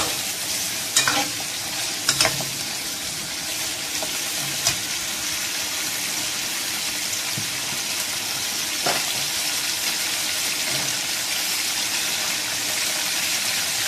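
Chicken pieces sizzling steadily as they fry in hot oil in a metal wok. A steel ladle scrapes and knocks against the pan a few times in the first couple of seconds, and twice more later.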